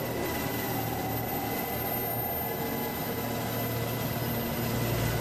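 Helicopter in flight, its engine and rotor making a steady low drone with a thin high-pitched whine above it.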